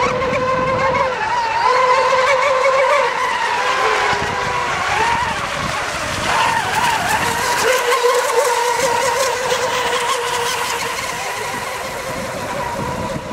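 Several radio-controlled racing boats running at full speed together, a high-pitched drone that wavers slightly in pitch as they race around the course.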